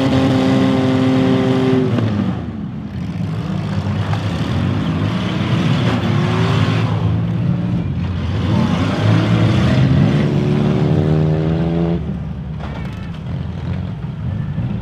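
Demolition derby cars' engines revving hard at full throttle, several at once, their pitch climbing and then dropping off abruptly about two seconds in and again near twelve seconds.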